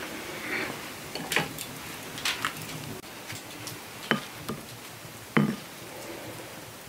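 Toast being dipped into soup in a red earthenware bowl, with a few separate light taps and knocks of bread and crockery against the bowl.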